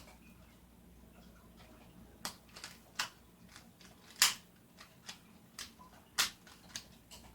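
A plastic Rubik's Cube being turned fast by hand during a speed solve: its layers snap round in a string of irregular sharp clicks, the loudest a little past halfway.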